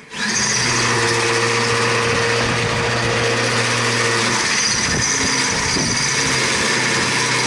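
A motor vehicle's engine running steadily close by, starting abruptly and holding an even note, with a shift in its low tones about four and a half seconds in.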